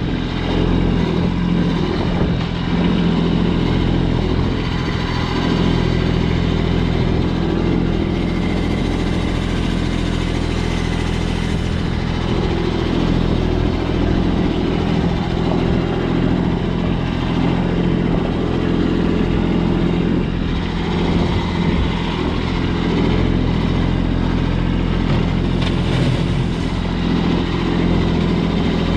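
A vehicle engine running steadily at an even speed, a low, constant drone with no revving.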